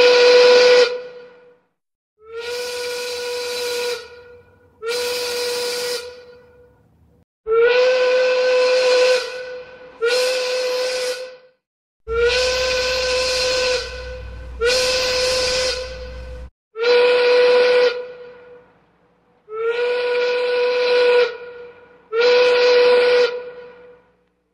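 A steam locomotive whistle sounded in ten separate blasts of about one to two seconds each. Each blast holds one steady pitch with a hissy edge, and the blasts come a second or so apart.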